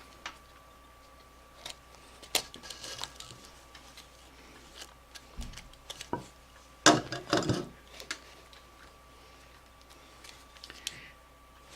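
Hand-stitching leather: scattered light clicks and taps as the needle is worked through the leather strap, with a louder rustle about seven seconds in.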